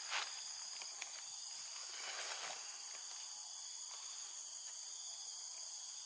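Steady insect chorus: several high, unbroken tones that hold throughout. Two brief rustles come through it, one right at the start and one about two seconds in.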